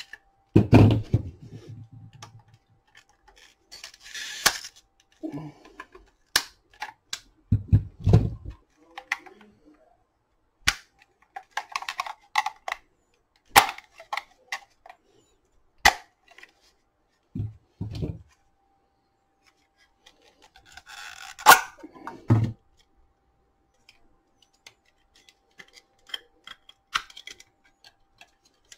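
Plastic case of a Dyson DC35 battery pack being pried apart with a flathead screwdriver. Irregular sharp cracks and snaps come as the case clips give, with knocks, thuds and scraping in between. The loudest crack comes about two-thirds of the way through.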